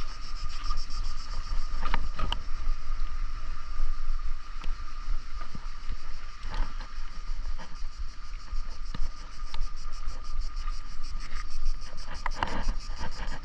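Wind rumbling on the microphone during a bicycle ride, with a steady whine and a fast, even ticking running underneath.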